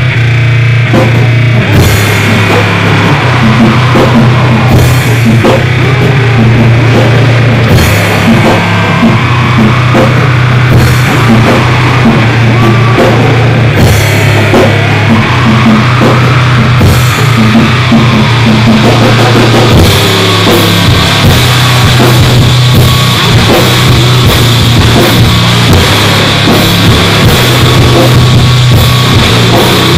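Loud, heavily distorted gore-noise / mincecore music: drum kit and cymbal hits with distorted guitar over a dense, saturated wall of noise and a heavy low bass drone.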